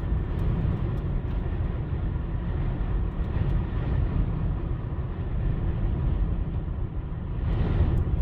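Steady low rumble of road, engine and wind noise heard from inside a car's cabin while driving, swelling briefly near the end.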